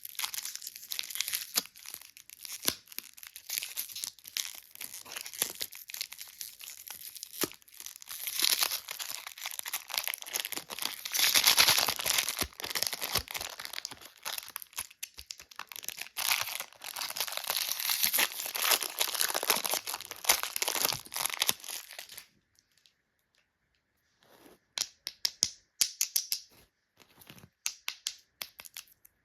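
Plastic lollipop wrappers crinkling and tearing in a dense run of crackles. About three-quarters of the way through they stop, then resume as a few sparse crinkles.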